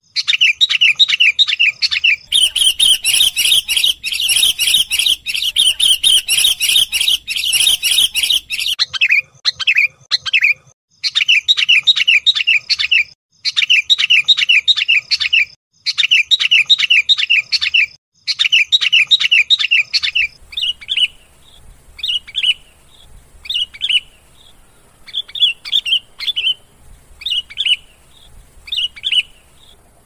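Sooty-headed bulbul calls played as a lure recording for trapping wild bulbuls: rapid strings of sharp chirps, several a second, with a second, higher, hissier chattering layer over them from about two to nine seconds in. After that the chirps come in bursts of about two seconds with short gaps, and in the last third they thin out to single chirps about a second apart.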